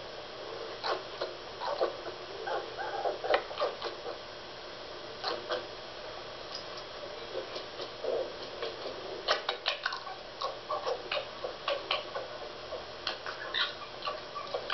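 A red fox and a Staffordshire bull terrier play-fighting: irregular runs of short clicking, chattering animal sounds and scuffles, busiest in a cluster early on and again around the middle.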